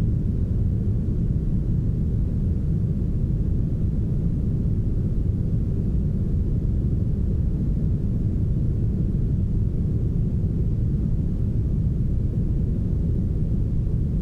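Heavily smoothed synthetic brown noise: a steady, deep rush of noise with almost nothing in the upper range.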